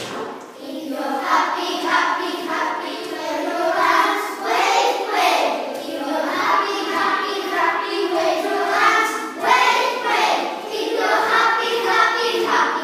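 A group of children singing together, a continuous sung melody with no pause.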